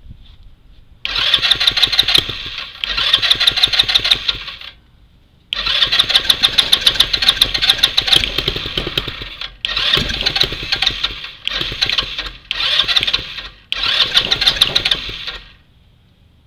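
Electric starter cranking a Yerf-Dog Spiderbox go-kart's GY6 single-cylinder four-stroke engine in seven tries of one to four seconds each. The engine turns over with a fast, regular pulse but never fires: it turns over strong yet won't start, which the owner suspects is the carburettor or the fuel lines.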